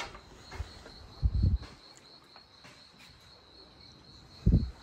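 An insect chirring steadily in a high, finely pulsing tone, with two short, dull low bumps, one about a second in and one near the end, louder than the chirring.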